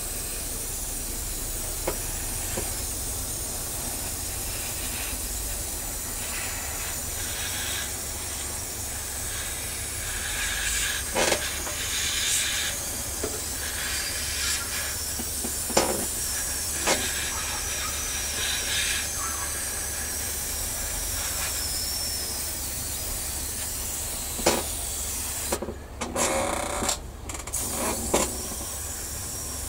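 Airbrush hissing steadily as it sprays a coat of paint, with a few light clicks along the way. Near the end the hiss cuts out briefly twice.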